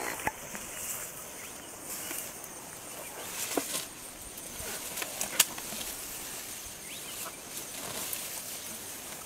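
Elephants moving and feeding in tall grass: scattered rustles and sharp snaps of vegetation, the loudest about five seconds in, over a faint steady hiss.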